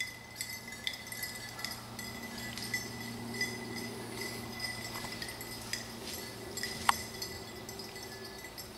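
Faint, scattered light metallic clinks and small clicks as the person filming walks through tall grass, over a low steady hum. One sharper click comes about seven seconds in.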